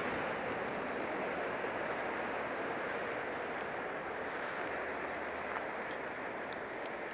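Steady rushing noise of fast river current around an anchored inflatable boat, easing off slightly over a few seconds.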